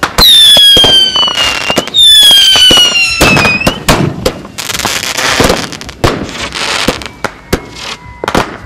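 Consumer firework cakes firing: two long, loud, shrill whistles, each sliding slowly down in pitch, the second turning briefly upward at its end. They are mixed with rapid bangs and crackling bursts, and a fainter whistle comes near the end.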